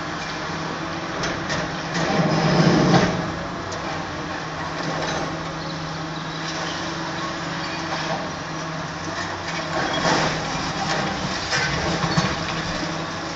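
Long-reach demolition excavator breaking up a concrete office block: its diesel engine runs steadily while concrete breaks and debris clatters down, loudest about two to three seconds in and again around ten seconds in.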